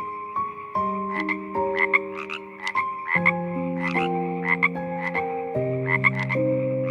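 Frogs croaking in short, pulsed calls about twice a second, often in quick pairs, over soft background music of held notes that change every second or so.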